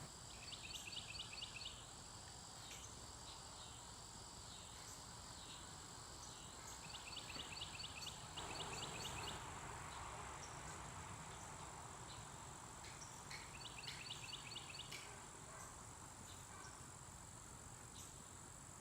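Faint outdoor ambience with an insect calling in three short bursts of rapid, evenly pulsed chirps at one high pitch, over a steady high-pitched whine.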